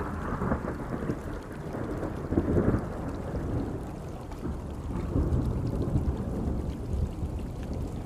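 Thunder rumbling over steady rain, with a louder roll of thunder about two and a half seconds in.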